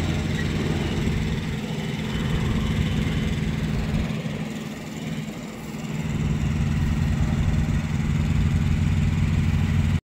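Engine running steadily at a low, even pitch. It dips in level about halfway through and comes back up.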